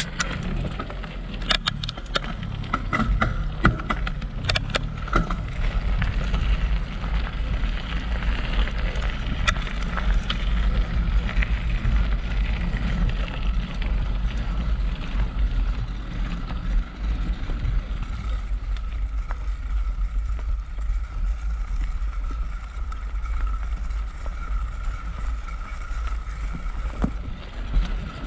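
Mountain bike ridden over gravel and then a dirt forest trail, heard from a handlebar-mounted action camera. There is a steady low rumble of tyres and wind on the microphone, with crunches and rattles over the first few seconds and a faint steady high hum in the second half.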